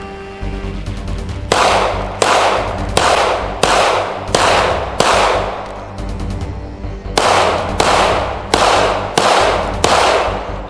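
Gunshots fired at a steady pace, about 0.7 seconds apart: six shots, a pause of about two seconds, then five more, each with a long echoing tail, over background music.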